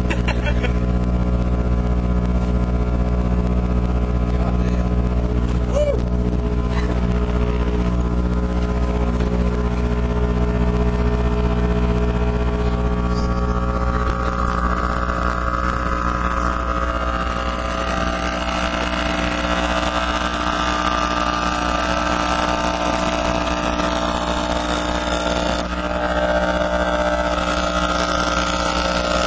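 A custom-built 15-inch RE Audio Destroyer subwoofer, run free-air straight off a wall socket, buzzing a loud, steady mains hum as its cone is driven hard. About halfway through, a harsher, higher rasp grows in over the hum as the overheated voice coil starts to smoke and burn.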